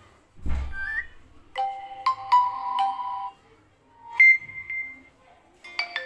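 Built-in notification tones of a vivo Y20g smartphone, played one after another through its speaker as each is tapped in the list. First a quick rising chirp, then a chime of several bell-like notes lasting under two seconds, then a single rising tone held for about a second, and another chime starting near the end. A low thump comes just before the first tone.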